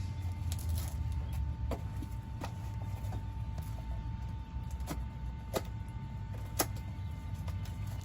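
Packaging being opened by hand: a handful of short, sharp clicks and taps, about five spread through, over a steady low hum.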